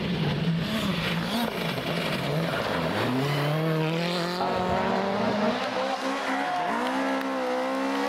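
Rally car engines revving hard at full throttle, the pitch rising and falling through gear changes. About three seconds in, a long climbing rev as a car accelerates, and another climb near the end.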